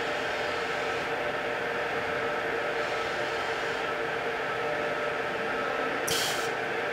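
CNC stone-working machining centre running with a steady mechanical hum and a few held whining tones while its spindle head works over the tool magazine. A short hiss comes about six seconds in.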